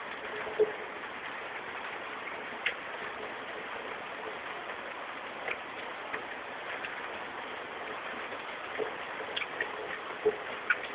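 Steady rain falling, an even hiss with a few scattered sharp taps of drops landing close by.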